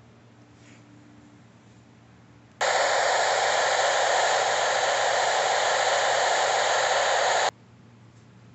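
TV static: a loud, steady white-noise hiss that starts suddenly about two and a half seconds in and cuts off sharply about five seconds later, with only faint room tone before and after it.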